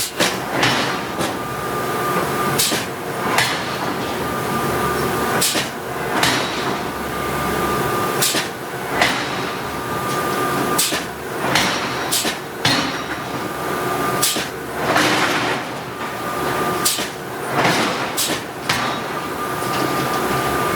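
Hydraulic forging hammer striking hot steel, with repeated heavy blows at an uneven pace of roughly one every half second to second, over a steady machinery hum.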